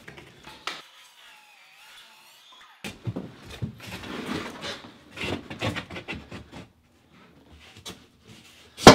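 Scuffing and rubbing as a foam shower curb is handled and pushed into place against the edge of the shower pan, with a sharp knock just before the end.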